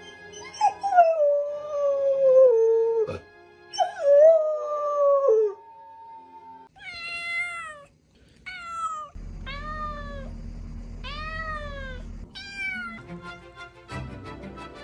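A pet animal calls: two long wailing calls that sink in pitch, then five short calls that rise and fall. A steady low hum sits under the later calls, and music comes in near the end.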